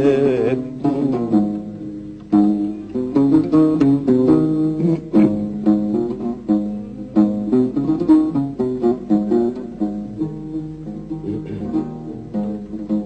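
Acoustic guitar playing an instrumental melodic passage of quick plucked notes between sung lines of an Arabic song. At the very start, the singer's last held note fades out.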